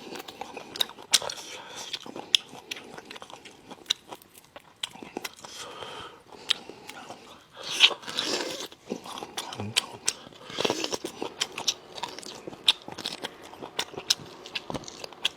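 Close-miked eating of braised spicy lamb chops: biting and chewing with many sharp wet mouth clicks and smacks, and a louder burst about eight seconds in.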